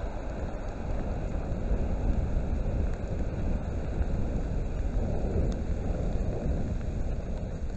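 Thousands of burning safety matches in a large blaze: a steady low rushing noise of the flames, a little louder from about two to six seconds in.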